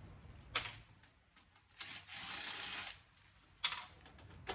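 Metal parts of a DVD home theater receiver being worked by hand during disassembly: a sharp knock about half a second in, a scraping rub lasting about a second, and another knock near the end.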